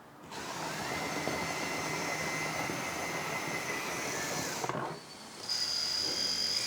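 Electric-driven hydraulic pump of a 1/14 scale RC hydraulic excavator working under load as an arm or slew function is operated, a steady whirring run of about four and a half seconds with a whine that steps up about a second in. It stops about five seconds in, leaving a thin high steady whine.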